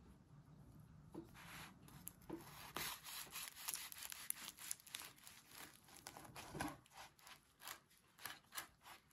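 Kitchen knife sawing back and forth through a toasted lavash-wrapped shawarma on a wooden cutting board: a quick run of short scraping strokes through the crisp flatbread and filling, starting about a second in.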